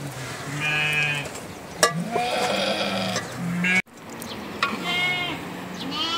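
Sheep bleating, several wavering calls overlapping one after another, with a sharp knock about two seconds in.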